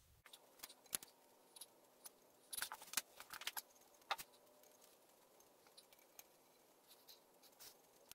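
Small metal clicks and taps of a hex key working the screws that hold a gear rack to a surface grinder table, with a quick cluster of them a little under three seconds in.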